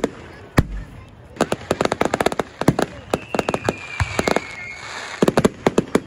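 Fireworks display: aerial shells bursting into rapid crackling. A deep boom comes about half a second in, a high whistle slides slightly down in pitch around three seconds in, and a dense flurry of crackles comes near the end.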